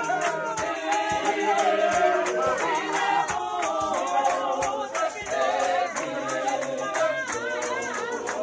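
A congregation singing a gospel song together in harmony, with steady hand-clapping keeping the beat at about two claps a second.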